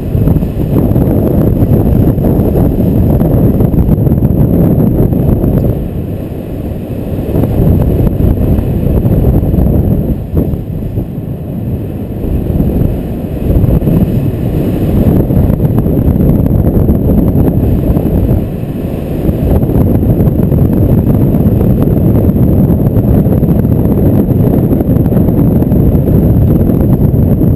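Wind buffeting the microphone of a paraglider pilot's camera in flight: a loud, steady low rumble that eases a little a few times.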